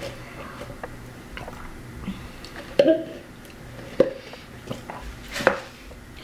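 Drinking soda through a straw from a paper cup: quiet sips and swallows, with a few sharp clicks.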